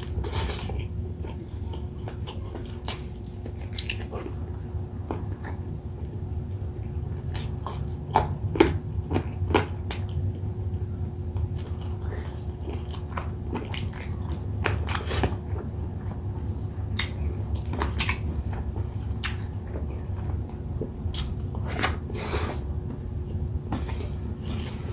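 Close-miked chewing and biting of air-fried chicken inasal and rice, with scattered wet mouth clicks and smacks, over a steady low hum.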